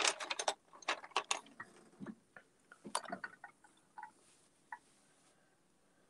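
Coloured pencils clicking and knocking against each other and the table as they are handled. The clicks come fast at first, then thin out to scattered single clicks.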